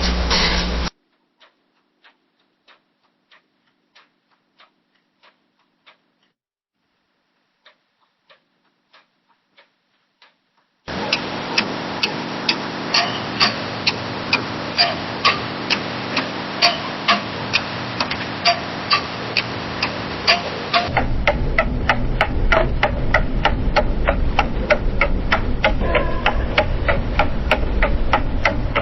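Clock ticking, in several different recordings one after another. Faint ticks about twice a second with near silence between them; about a third of the way in, ticking about twice a second over a steady room hiss; about two-thirds through, a faster tick, about four a second, over a low hum.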